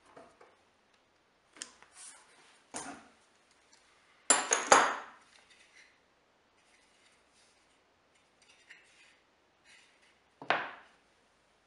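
Metal hand tools and steel clamps being set down on a wooden workbench: a few separate clinks, then a loud metallic clatter about four seconds in. Near the end there is a single knock as a plywood block is set down on a plywood board.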